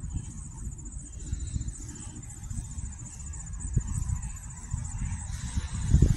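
Insects trilling: a steady, rapid high-pitched pulsing. Underneath is a low, gusting rumble on the microphone that swells near the end.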